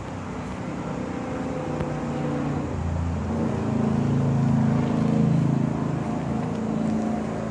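A 1982 Honda CB900F's air-cooled inline-four engine idling steadily, growing somewhat louder in the middle.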